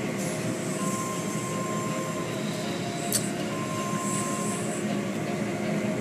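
Automatic tunnel car wash running: water spraying and cloth brushes and curtains washing over the vehicle, with a steady mechanical rumble. A thin steady tone sounds twice for about a second each, and there is a single sharp click about three seconds in.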